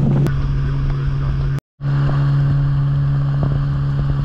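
Outboard motor of a pirogue running at a steady cruising speed, a constant hum at one pitch. The sound cuts out completely for a moment about a second and a half in, then returns unchanged.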